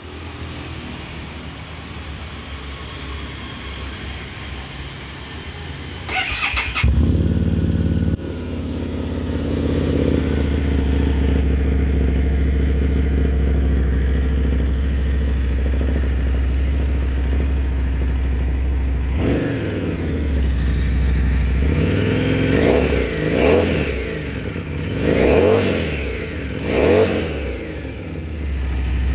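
Harley-Davidson Street 500's V-twin with an aftermarket Vance & Hines exhaust being started: a brief crank about six seconds in, the engine catching and idling steadily, then several short revs of the throttle in the last ten seconds.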